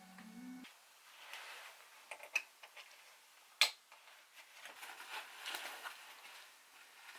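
Light rustling with scattered small clicks and knocks, as of things being handled, and one sharp click about three and a half seconds in. A piece of music ends just after the start.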